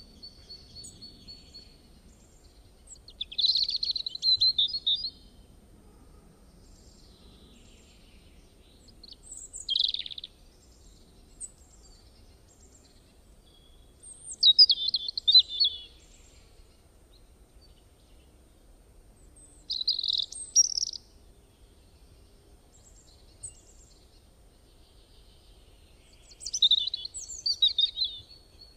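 A songbird singing short, high chirping phrases, five in all, each a second or two long and coming about every five or six seconds, over a faint steady low background noise.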